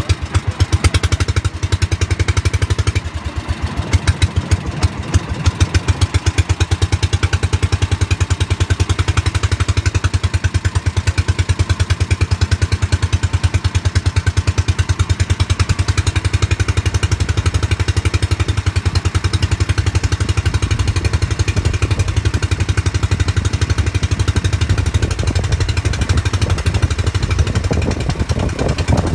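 Motorized outrigger boat's small engine running steadily under way, a loud, fast, even chugging.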